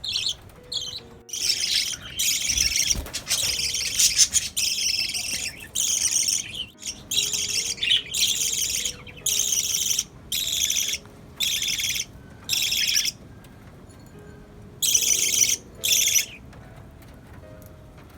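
Small pet parrots, budgerigars and lovebirds, giving a run of shrill, harsh calls one after another for about thirteen seconds, then two more a couple of seconds later.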